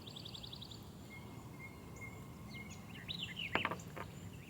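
Songbirds calling around the pond, with a quick trill at the start and scattered chirps after it. A few short sharp clicks or knocks come about three and a half seconds in.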